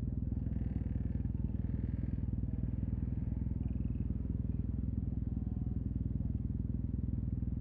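Yamaha TMAX 560's parallel-twin engine idling steadily through an Akrapovic carbon full-system exhaust.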